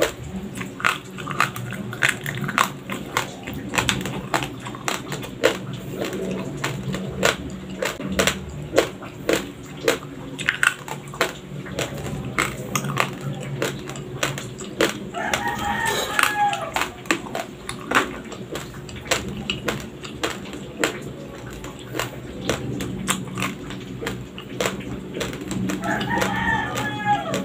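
Close-up chewing of raw, uncooked Dinurado white rice: a dense run of sharp, dry crunches. A rooster crows in the background twice, about midway and near the end.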